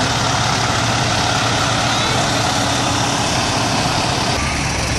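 Heavy fire engine and truck engines running steadily as the vehicles roll slowly past. The low rumble grows stronger near the end.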